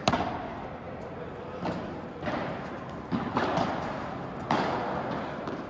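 Padel rally: rackets striking the ball and the ball bouncing, as a string of sharp knocks. The loudest comes right at the start, then more follow roughly every half-second to a second.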